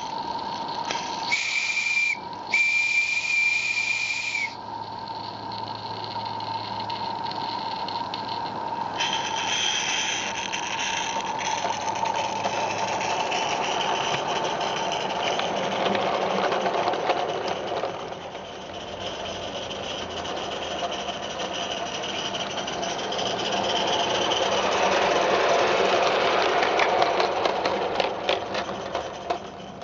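Live-steam garden-railway locomotive, a Merlin Locomotive Works Major 0-6-0, sounding its steam whistle twice, a short toot then a longer blast, then running with a steady hiss of steam, with a run of clicks near the end.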